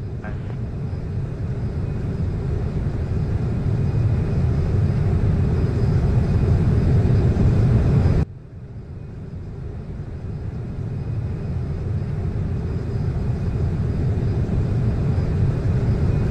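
Low rumble of jet aircraft engines that builds steadily, drops away suddenly about eight seconds in, then builds again.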